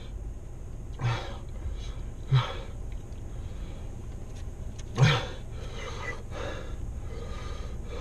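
A man breathing hard and gasping from the burn of Carolina Reaper peppers, with three short voiced gasps: about a second in, about two and a half seconds in, and the loudest about five seconds in. A steady low hum runs underneath.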